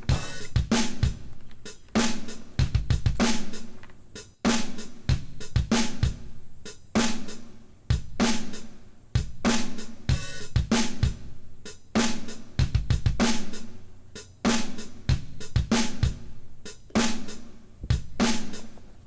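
Background music: a drum-kit beat with snare, hi-hat, cymbal and bass drum at a steady tempo.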